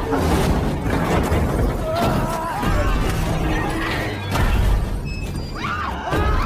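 Film sound of a train derailment: railway carriages overturning and breaking apart, with a continuous heavy rumble and repeated crashes, and gliding high screeches around two seconds in and again near the end, all under a dramatic film score.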